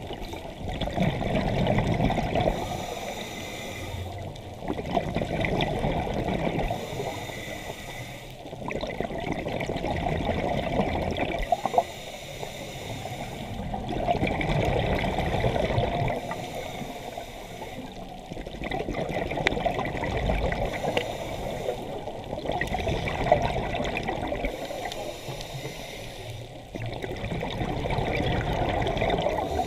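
Scuba diver breathing through a regulator underwater: exhaled air bubbling out in long surges, alternating with the short hiss of each inhalation, about one breath every four to five seconds.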